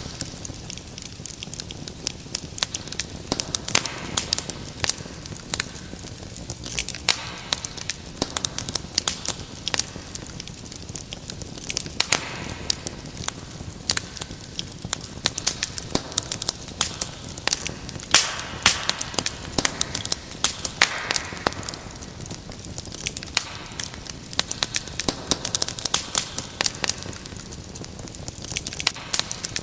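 Wood fire crackling in a fireplace: a dense, irregular stream of sharp pops and snaps over a low, steady rush of burning.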